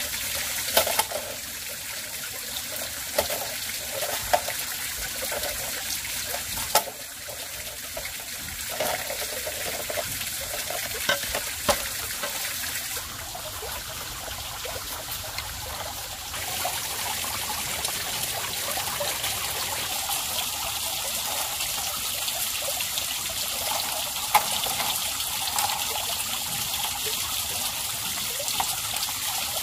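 A machete splitting and stripping green bamboo into thin strips: scattered sharp cracks and knocks over a steady rushing background hiss.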